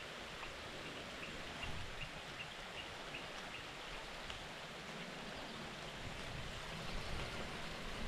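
Steady hiss of rain falling outdoors. Faint short high chirps repeat about two or three times a second through the first half.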